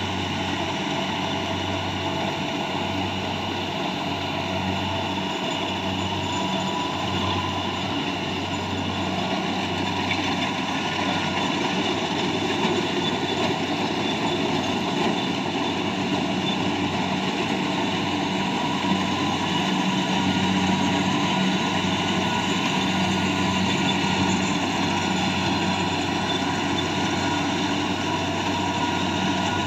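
A rice harvester's engine running steadily with the machine working, an even mechanical hum with a low pulsing throb. It grows slightly louder about two-thirds of the way through.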